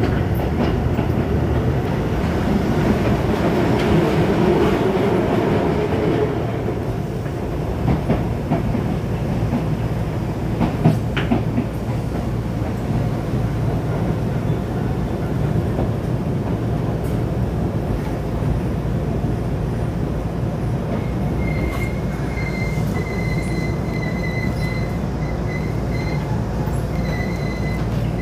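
Electric commuter train running: a steady rumble of wheels on rail, louder in the first few seconds, with a few rail-joint clicks near the middle. From about twenty seconds in, a thin high whine holds steady over the rumble.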